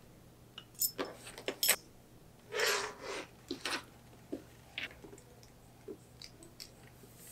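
Brass buckle clinking and tapping as it is handled and fitted onto a leather strap, with the leather rubbing. Several sharp clicks come in the first couple of seconds, a short scrape follows, then lighter scattered clicks.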